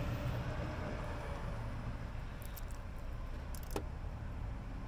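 A few short metallic clicks from a small ratchet tightening an ignition coil mounting bolt, over a steady low background rumble; the sharpest click comes late.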